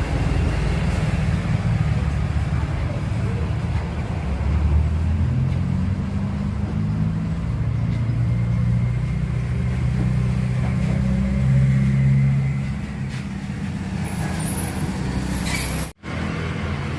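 Truck engine idling steadily with the air conditioning running, a low hum that rises and falls a little in pitch partway through. The sound cuts out abruptly for a moment near the end.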